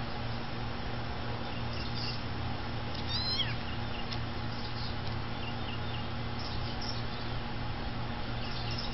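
A kitten mewing: a few short, thin, high-pitched calls, the clearest a falling cry about three seconds in, over a steady low hum.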